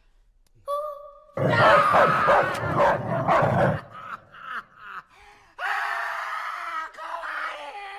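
A man screaming and yelling, loud and ragged for a couple of seconds. From about the middle comes one long, drawn-out wail.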